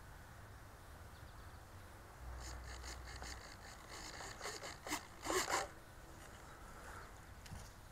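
Quiet outdoor background broken by a run of short rustles and scrapes close to the microphone, loudest about five and a half seconds in: handling or clothing rubbing near a worn camera.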